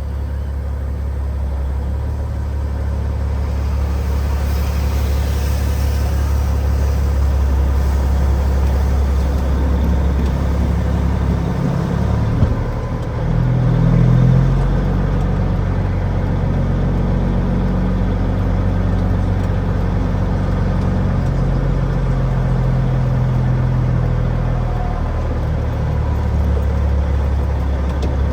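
Diesel engine of a loaded semi truck running at low speed, a steady low drone. About twelve seconds in it dips briefly, then picks up with a higher, louder note before settling again.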